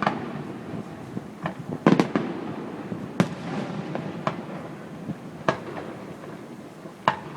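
Aerial fireworks bursting: irregular sharp bangs every second or so, the loudest a close pair about two seconds in.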